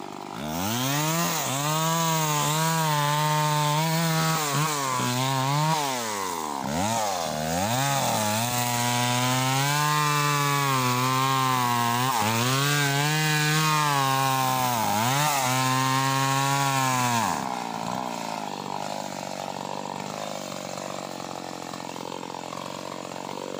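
Two-stroke chainsaw revving up from idle and cutting into a teak trunk at full throttle, its engine pitch sagging and recovering several times under load. About seventeen seconds in the throttle is released and it drops back to a quieter idle.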